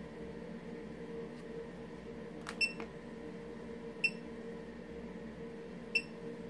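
Aion A7 digital Geiger counter chirping three times at irregular intervals, a short high beep for each count of background radiation detected by its tube.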